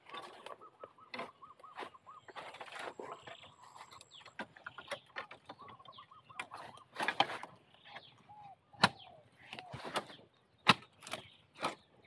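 A sesiam, a narrow-bladed long-handled spade, chopping at the base of a wild bamboo shoot wedged tight in the clump to cut it free. Faint rustling and scraping at first, then about six sharp strikes at uneven spacing from about seven seconds in.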